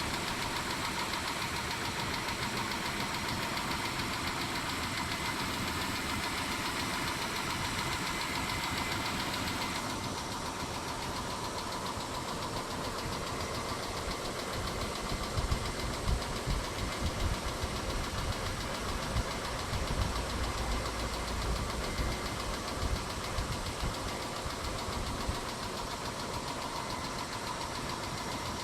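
Mitsubishi 6G72 V6 engine idling with a ticking knock, which the owner takes for noisy hydraulic lifters, though he wonders whether the engine itself is worn. The sound turns duller about ten seconds in, and there are some low bumps in the middle.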